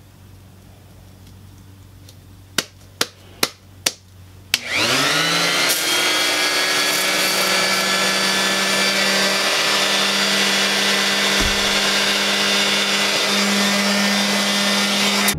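A few sharp clicks, then an electric sander switches on: its motor spins up within half a second and runs steadily at full speed.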